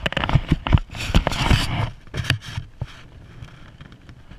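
Scraping, rustling handling noise on the camera's microphone, loud with sharp clicks for about the first two seconds, then fainter.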